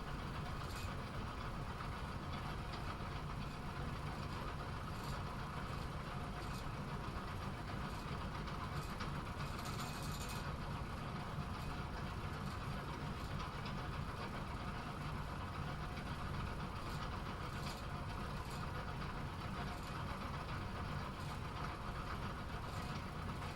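Bowling pinsetter machine running with a steady mechanical hum and occasional light clicks, and a brief hiss about ten seconds in.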